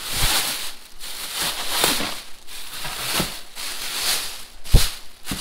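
Clear plastic bag wrapped around a boxed mitre saw crinkling and rustling in bursts as it is pulled open by hand. A single sharp knock near the end.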